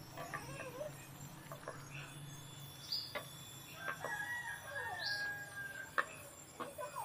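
Birds calling in the background, with short chirps throughout and one long drawn-out call from about four seconds in that lasts around two seconds. A wooden spatula knocks sharply against the steel frying pan twice.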